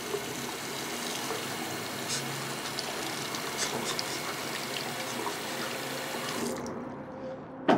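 Bathroom tap running into a basin, the water splashing over a hand held in the stream. The flow stops shortly before the end.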